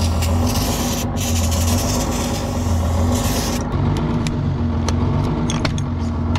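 Aerosol can of starting fluid hissing in long sprays, breaking briefly about a second in and stopping about three and a half seconds in. Then there are a few light clicks of a key turning in a truck's door lock. A steady low engine hum runs underneath throughout.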